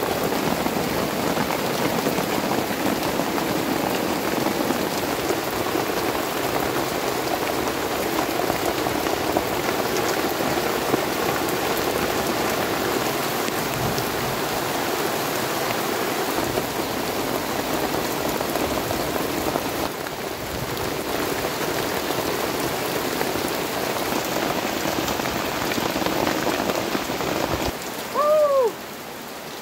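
Heavy rain falling steadily, dropping off sharply near the end.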